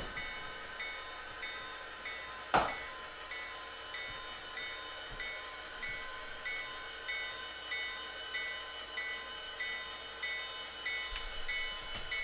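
Sound decoder of an HO scale Norfolk Southern GP40-2 model locomotive playing a running diesel engine and a bell ringing steadily, about one and a half strokes a second, as the model moves slowly. A single sharp click comes about two and a half seconds in.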